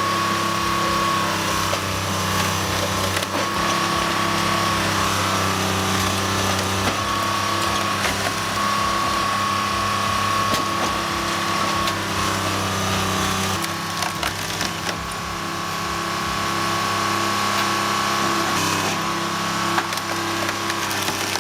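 Homemade firewood processor running on a vintage Detroit diesel engine, the engine holding a steady drone while wood cracks and splinters as logs are cut and split. A high steady whine comes and goes throughout, and the engine note shifts a little about two-thirds of the way in.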